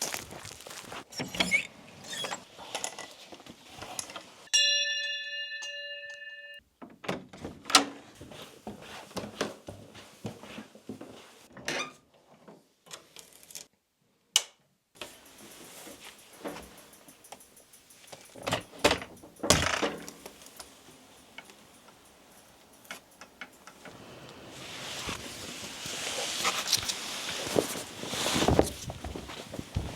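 A series of short household knocks, clicks and thunks, edited one after another. About five seconds in, a struck metal object rings clearly for about two seconds, like a small bell, and near the end a hiss swells up and fades.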